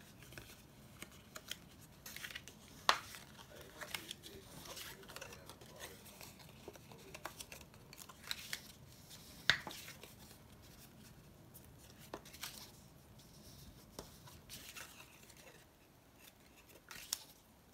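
Cardstock being folded along its score lines and burnished flat: soft, scattered crinkles, creases and rubbing, with two sharper paper snaps, about three seconds in and again about six seconds later.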